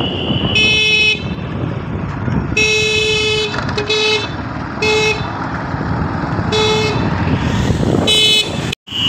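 Vehicle horn honking in six short toots, the second held longest, over the low rumble of a motorcycle ride with wind on the microphone. The sound drops out for a moment near the end.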